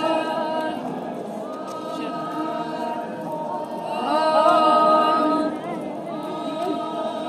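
A large group singing together without instruments, a chant-like traditional song, swelling louder for a second or so around the middle.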